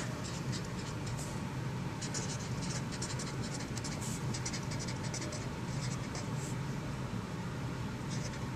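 Felt-tip marker scratching across poster paper as words are handwritten, in many short strokes, over a low steady hum.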